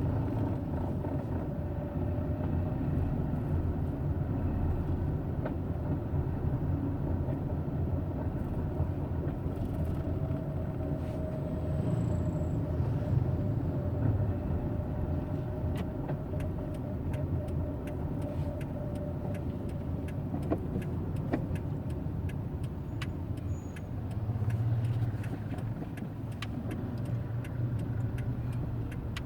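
Hyundai Eon small car running at low rpm: a steady low rumble with a faint held tone above it, the low-rpm noise its owner calls a grinding issue. From about halfway on, many short sharp ticks are scattered over it.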